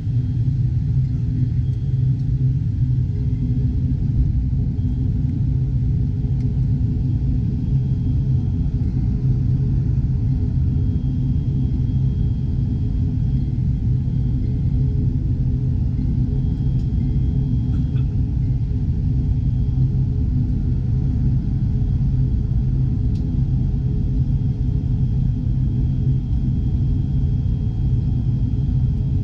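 Steady low drone of a turboprop airliner's engines heard inside the passenger cabin while the aircraft taxis, holding an even pitch and loudness throughout.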